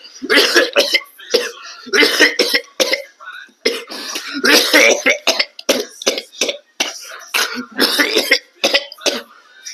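A person coughing hard in repeated fits of short, harsh, hacking coughs, with a gasp or throat-clear between fits. It is a coughing fit from a big inhaled hit held until the vape pen blinks (a 'blinker').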